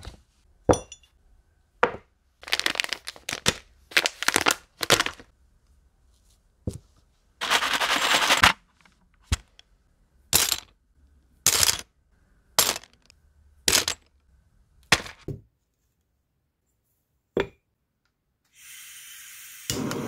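Kit parts being handled and set down on a hard surface: a series of sharp clicks, clinks and knocks with bursts of plastic bag crinkling. Near the end a butane blow torch starts to hiss, then comes on louder with a steady rushing flame.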